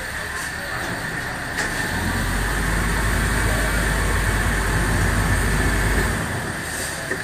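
Passenger riverboat's diesel engine running. Its low rumble swells about two seconds in and eases off near the end, the engine working harder as the boat manoeuvres in close to the pier.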